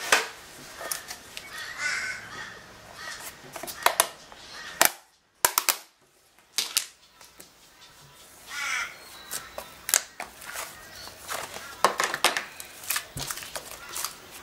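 Hands pressing and lifting a plastic tub on a puddle of slime, then squishing and stretching the slime: sticky squelches with a string of sharp pops and clicks as trapped air bursts, and a short quiet pause about five seconds in.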